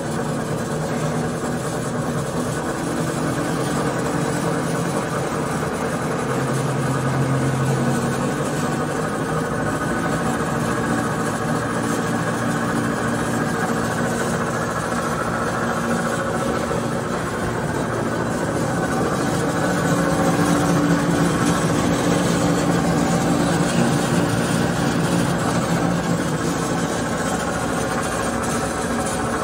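Marvel Mark I vertical metal-cutting bandsaw running with no cut: a steady machine hum from its 2 hp motor and drive. The pitch shifts a couple of times, around a quarter and two thirds of the way through, and it gets slightly louder after the second shift.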